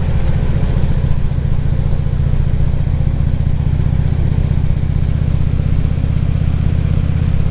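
Harley-Davidson V-twin engine running steadily while cruising at an even speed, with no revving or gear change.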